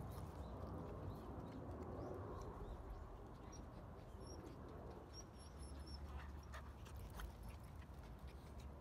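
Dogs playing and scuffling on a wooden deck, with a few faint clicks of claws and paws on the boards over a low steady rumble.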